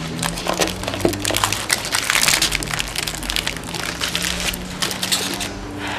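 Foil trading-card pack wrappers crinkling under the hands: a dense, continuous run of crackles.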